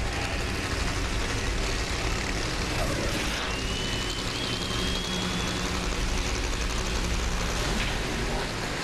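Nitromethane-burning, supercharged Funny Car drag-racing engines running with a dense, steady noise.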